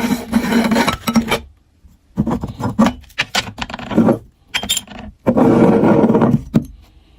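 Meat grinder grinding material with a rasping, scraping churn. It runs steadily at first, then stops and starts in several short bursts, the longest near the end.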